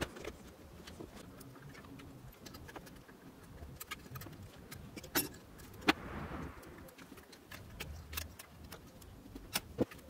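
Scattered small metal and plastic clicks and taps from hands working on a copier fuser unit's end bracket and wiring, with a sharp click about five seconds in and another about six seconds in, a brief soft rustle, and two more clicks near the end.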